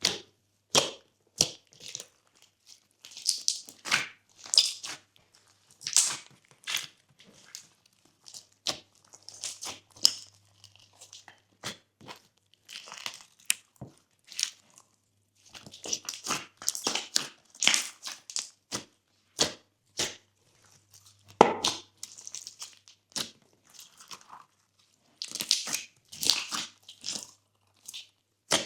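Glossy slime being squeezed, stretched and folded by hand, giving irregular sticky clicks, pops and crackles, some sharper and louder than others.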